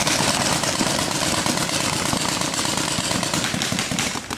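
Many paintball markers firing rapidly at once, a dense, continuous crackle of shots that drops away right at the end.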